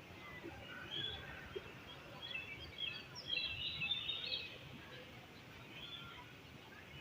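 Birds chirping in quick runs of short high notes, busiest about three to four seconds in, over steady background noise.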